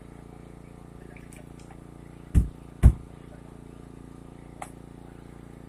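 An engine runs with a steady hum while two heavy thuds land about half a second apart.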